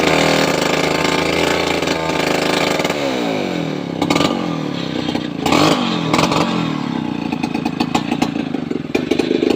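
Chainsaw engine running, its pitch dropping and climbing again a few times as the throttle is eased off and opened.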